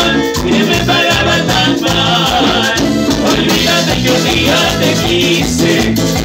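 Live tropical band playing Latin dance music with a steady beat, congas, timbales and keyboards over a rhythmic bass line.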